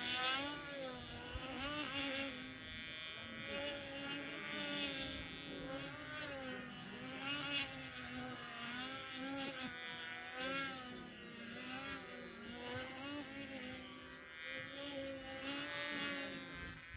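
Small model aircraft engine buzzing in flight, its pitch rising and falling about every second and a half as the model circles.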